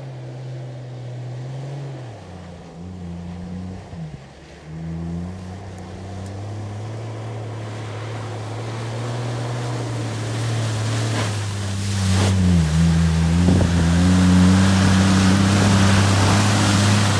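Engine of a four-wheel-drive pickup running steadily, getting louder as it approaches, its pitch dipping a couple of times. Over the last few seconds a rushing splash of water grows alongside it as the truck drives through flooded ground.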